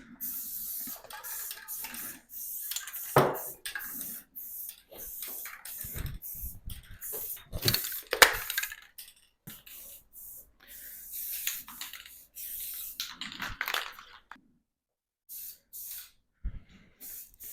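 Aerosol spray-paint can hissing in repeated bursts with short pauses between them as graffiti is sprayed on a wall. Two sharp knocks stand out, about three and eight seconds in.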